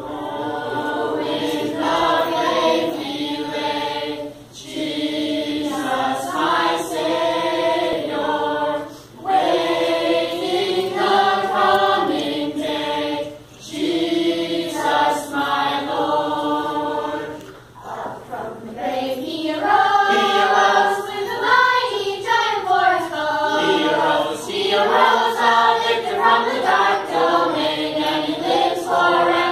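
Mixed youth choir of teenagers and young children singing together, in phrases of a few seconds with short breaths between, then without a break for the last ten seconds or so.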